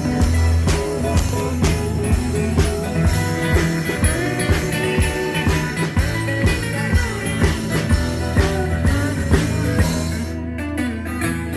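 Rock band playing an instrumental passage: a drum kit keeps a steady beat of about two hits a second under bass and guitar, with the guitar bending notes. Near the end the drums drop out briefly.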